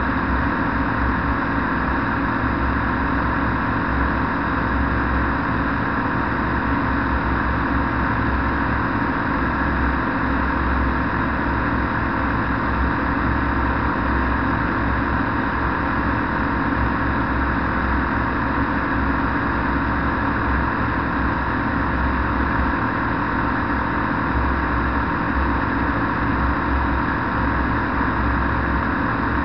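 Flex-wing microlight trike in steady cruising flight: the engine and propeller drone at an even pitch under a constant rush of air past the open cockpit.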